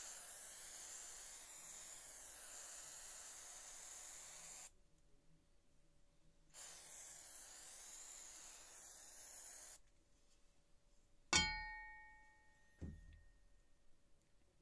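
Aerosol spray can hissing in two long bursts onto a rusty steel spade blade. Then one sharp metallic clang that rings briefly, the loudest sound, and a lighter knock about a second and a half later.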